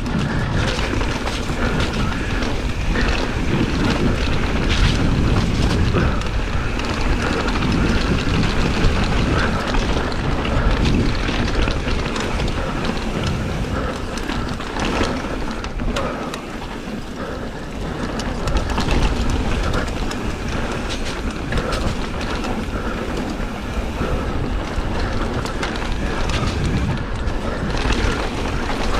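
Mountain bike descending a dirt trail at speed: wind buffeting the bike-mounted action camera's microphone over tyre rumble, with frequent clattering knocks of the bike's chain and frame over roots and rocks.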